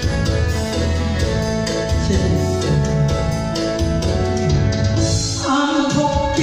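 Backing track of a Japanese pop song, with a steady pulsing bass under held melody notes; a man's singing voice through a microphone comes in about five seconds in.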